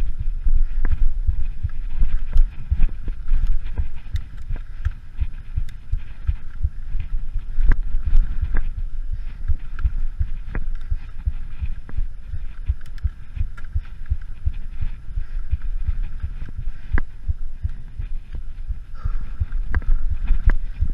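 Mountain bike riding fast down rough, rocky dirt singletrack, heard from a camera on the rider: a continuous uneven low rumble of wind buffeting and jolts, with frequent sharp clicks and rattles from the bike over rocks and bumps.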